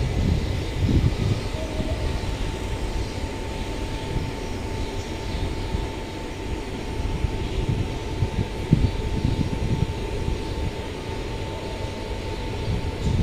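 Steady low engine-like rumble with a faint high whine held through most of it, and gusts of wind buffeting the microphone.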